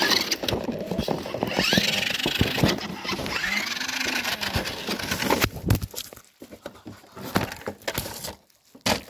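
Close rustling and knocking of handling noise, with footsteps in dry grass and leaves, and a brief whine that rises and falls in pitch about four seconds in. The noise dies down after about six seconds to scattered clicks.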